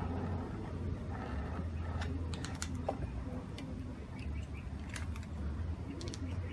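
Scattered light clicks and taps of handling: a spray gun set down on a wooden plank and a small turntable turned, over a steady low hum.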